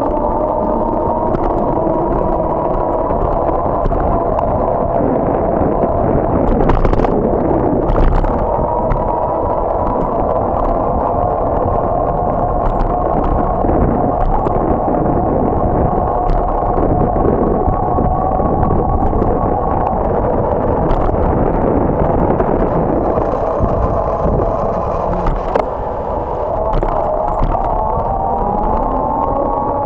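Riding noise from a moving bicycle: a steady whine of several tones that drift with speed and rise near the end, over a constant road rumble, with scattered sharp clicks and rattles.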